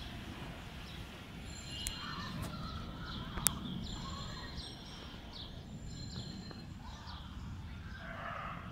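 Birds chirping over a steady low background rumble: repeated short falling chirps, with a couple of rougher calls. One sharp click about three and a half seconds in.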